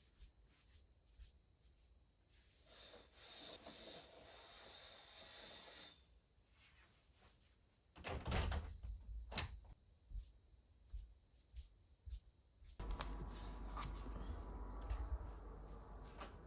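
Faint knocks and clatter of things being handled, like cupboard doors or drawers, with a low rumble setting in about three-quarters of the way through.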